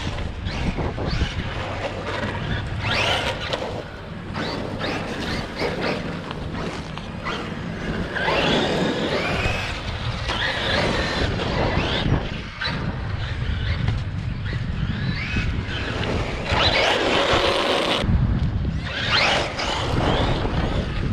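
Electric RC monster trucks driving, their motors whining up and down in pitch as they rev and let off, with wind rumbling on the microphone.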